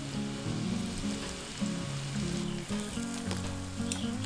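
Flour-coated oyster mushroom pieces deep-frying in hot oil in a pan, a steady sizzle under background instrumental music of sustained notes. A few sharp clicks come near the end.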